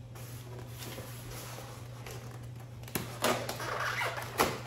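A butter knife slitting the tape on a styrofoam box and scraping against the foam: a click about three seconds in, then scratchy rubbing and a few sharp knocks. Before that there is only a steady low hum.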